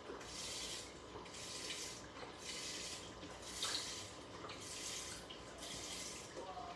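Beef broth pouring from a carton into a stockpot of soup, the stream splashing in surges about once a second.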